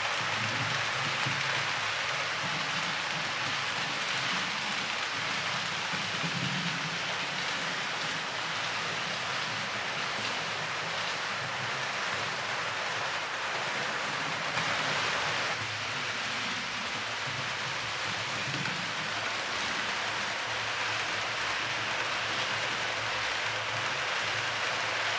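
H0-scale model passenger train running on the layout's track: a steady rolling hiss and rattle of wheels on rails over a low motor hum, briefly louder about fifteen seconds in.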